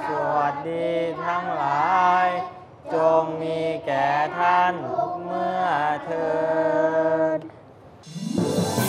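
A group of young Buddhist novice monks chanting a blessing for their teachers together, in long held and gliding phrases. The chanting ends about 7.5 seconds in, and instrumental music starts just before the end.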